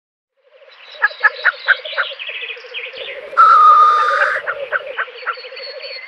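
Male black grouse displaying at a lek: a continuous fast bubbling, cooing call, starting about half a second in. About a second in come five sharp clicks in quick succession, and at about three and a half seconds a loud hissing burst lasting about a second.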